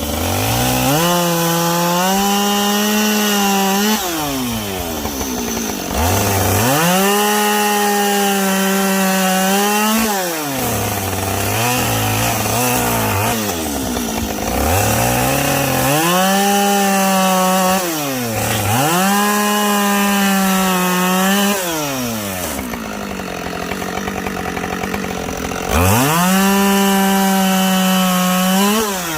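Two-stroke chainsaw bucking logs: it revs up to full throttle and holds there through a cut for three to four seconds, then drops back toward idle, about five times in a row. It runs at lower, unsteady revs for a few seconds around the middle.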